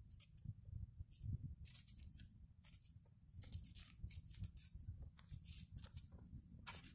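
Faint irregular rustling and scuffing, many short dry scrapes at uneven intervals, over a low wind rumble on the microphone.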